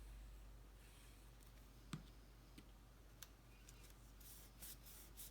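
Faint handling of cardstock: a few light ticks, then a quick run of short papery rustles from about four seconds in, as the paper pieces are pressed and smoothed into place.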